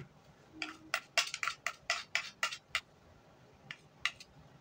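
A spoon knocking and clinking against a bowl: a quick run of about ten sharp clinks over two seconds, then two lighter taps. This is powdered bait ingredients being measured out by the spoonful.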